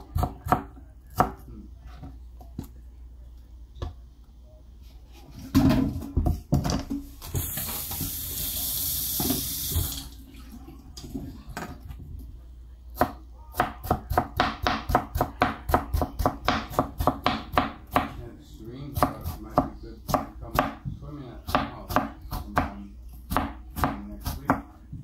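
A large kitchen knife chopping watermelon rind on a plastic cutting board: a few strokes at first, then a long run of quick, even chops, about three a second, from about halfway on. In between, a tap runs for a couple of seconds.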